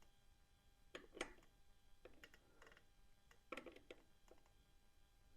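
A few faint, scattered clicks and taps as the 1978 Kawasaki KL250's engine is turned over slowly by hand, inching the F timing mark toward the line for ignition timing. The clearest clicks come about a second in and around three and a half seconds in.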